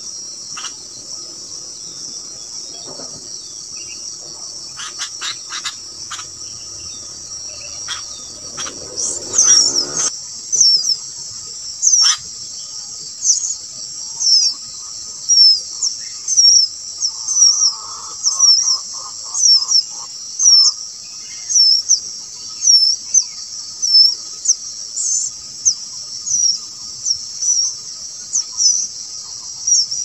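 A steady high insect drone, and from about nine seconds in, a run of short, sharp, high bird chirps, one or two a second.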